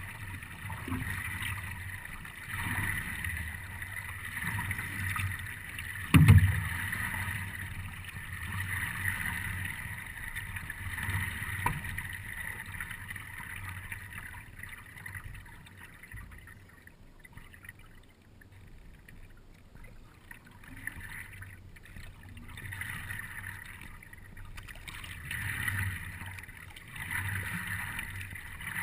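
Water lapping and splashing against the nose of a paddleboard as it moves across the lake, in soft surges every second or two. There is a single sharp knock on the board about six seconds in.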